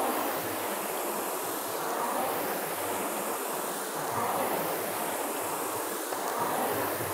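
Concept2 rowing machines' air-resistance flywheel fans whooshing under hard rowing, the rush swelling with each drive about every two seconds at a stroke rate of 28 a minute.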